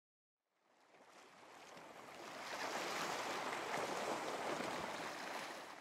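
Ocean waves sound effect: a wash of surf that swells up from silence about a second in and fades away near the end.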